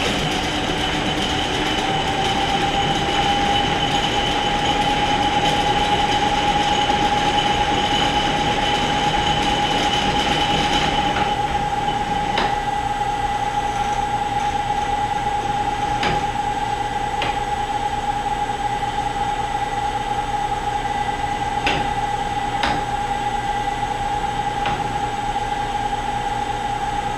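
Clausing 1500 lathe's 7.5 hp three-phase motor running on a variable frequency drive, with a steady electric whine that rises a little in pitch in the first couple of seconds and then holds. A higher whistle drops out about a third of the way in, and a few sharp clicks follow.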